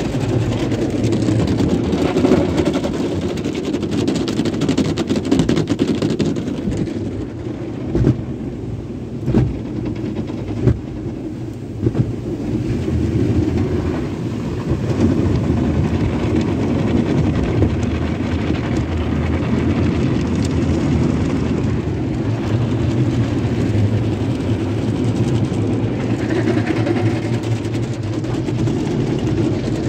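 Sonny's tunnel car wash equipment working over the car, heard from inside the cabin: a steady rumble and wash of spraying water and cloth washers, with a few sharp knocks on the body between about eight and twelve seconds in.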